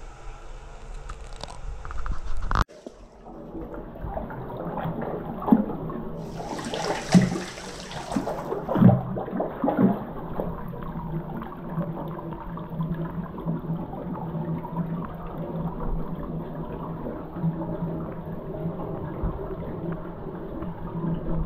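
Hot-spring water pouring steadily from a wooden spout into a wooden bath tub, the surface churning and splashing as the spring water flows through the tub continuously. It starts about two and a half seconds in, after a different noise cuts off abruptly.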